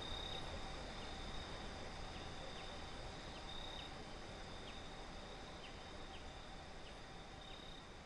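Outdoor insects chirring in the background, a steady high-pitched trill over faint low ambient noise, slowly fading out.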